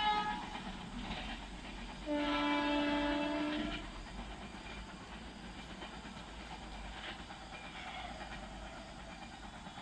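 Indian Railways WAP-7 electric locomotive horns: a loud blast cuts off just as the sound opens, then a second single blast of under two seconds follows about two seconds in. Afterwards a lower, steady running noise of the locomotive remains.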